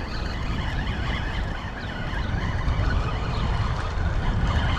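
Steady low rumble of outdoor background noise, with an even hiss above it and no distinct events.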